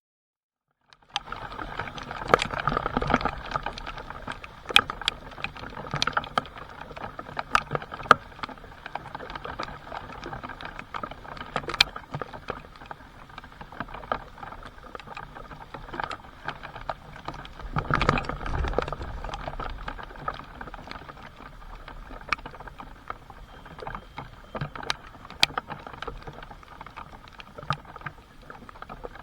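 Rain falling, with many sharp ticks of single drops striking, starting about a second in; it swells louder twice, near the start and about halfway through.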